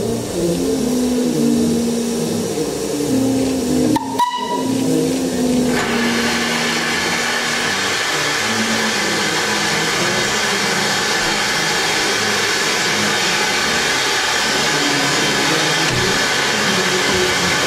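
LNWR Webb Coal Tank No. 1054 steam locomotive standing: a short whistle toot about four seconds in, then a steady, loud hiss of escaping steam from about six seconds on.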